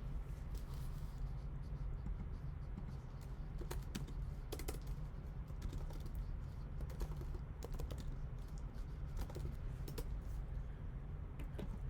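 Irregular light clicks of typing on a computer keyboard, some in quick runs, over a low steady hum.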